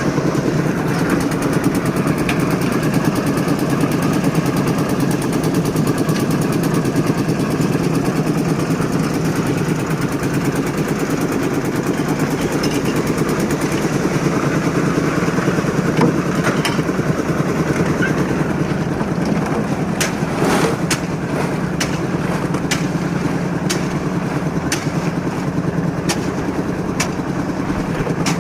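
An engine running steadily at an even speed, with scattered sharp knocks in the second half.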